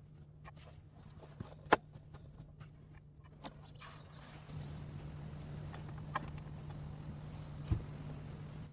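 Scattered clicks and knocks of repair work, the loudest just under two seconds in and near the end, over a steady low hum.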